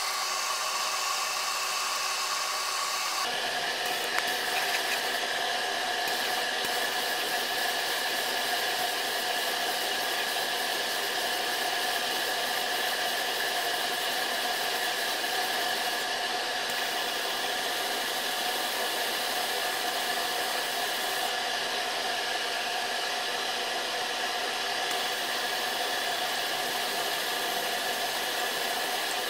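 Wood lathe running steadily with a pepper mill blank spinning in its chuck, a steady whirring hum whose pitch changes abruptly about three seconds in.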